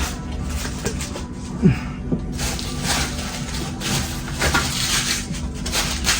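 Handling noise of metal Zippo lighters being picked up and set down: scattered light taps, clicks and rustling, over a steady low hum.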